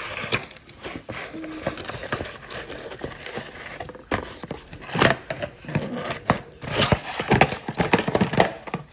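Cardboard toy box being handled and a plastic-wrapped toy train slid out of it: irregular rustling and crinkling of the plastic wrapping, with scattered knocks and scrapes against the box.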